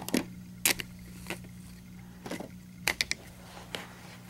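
Hard plastic LEGO pieces of a model container ship clicking and tapping as they are handled, about ten scattered sharp clicks, over a faint steady low hum.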